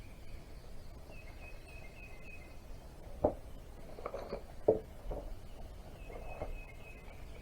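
A few sharp clinks and knocks of hand tools on metal during work on an engine, two of them louder than the rest, over faint steady high chirping.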